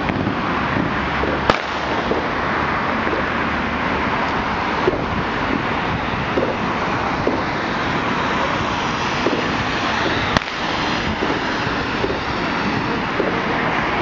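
Dense, unbroken din of fireworks and firecrackers going off all around, with sharp louder bangs about a second and a half in and again about ten seconds in.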